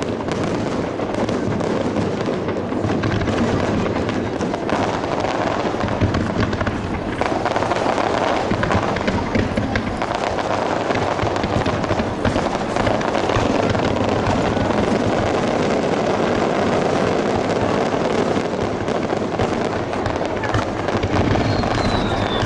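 Fireworks display: a dense, continuous run of aerial shell bursts and crackle, with a falling whistle near the end.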